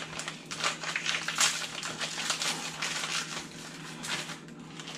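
Plastic packaging crinkling and rustling in quick clusters as the bag of Louisiana fish fry breading is handled and opened, thinning out near the end, over a steady low hum.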